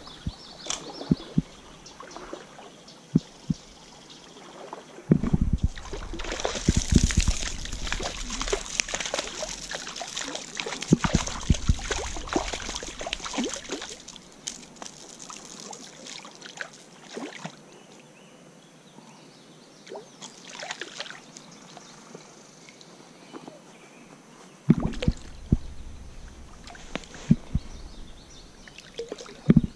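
Shallow stream water trickling and sloshing, with scattered small knocks. It gets louder for several seconds about five seconds in and again near the end.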